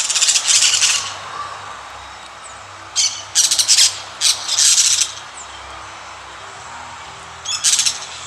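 Parrots squawking: four bouts of loud, harsh, raspy calls, each a second or less.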